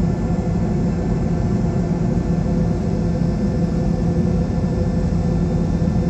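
Boeing 717-200 cabin noise: the rear-mounted Rolls-Royce BR715 turbofans running with a steady low rumble and an even hum, heard from inside the cabin.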